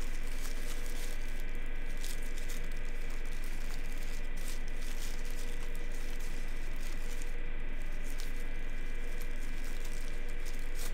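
Paper wrapping rustling and crinkling as small accessories are unwrapped from a box, over a steady background hiss with a faint hum.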